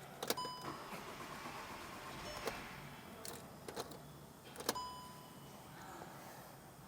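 Scattered sharp clicks and light knocks over a faint steady hiss, two of them followed by a short beep.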